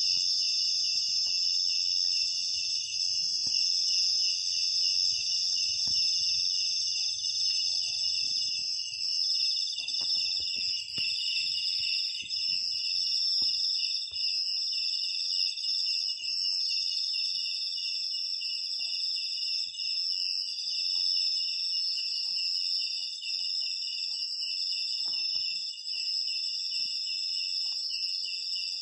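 Steady chorus of insects trilling without a break, several high-pitched pulsing songs layered together. Faint knocks and rustles come now and then.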